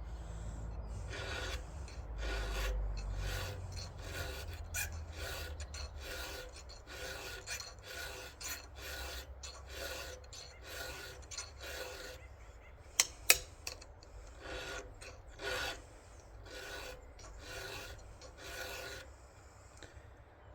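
A 7/32-inch round file rasping across a chainsaw chain's cutter teeth in steady, repeated sharpening strokes, about two a second. Two sharp clicks come about halfway through.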